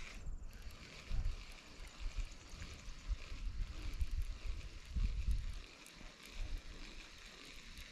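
Wind buffeting the microphone in uneven low rumbles, strongest about one second and five seconds in, over a steady high hiss of outdoor background.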